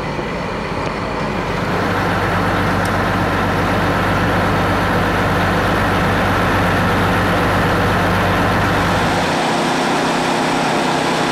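Fire engine's diesel engine running steadily at idle: a loud, even drone with a steady hum. The deepest part of the drone drops away about nine seconds in.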